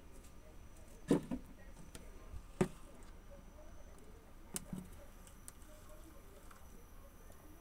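Quiet room tone with a handful of soft knocks: a double knock, a single one, then another double knock.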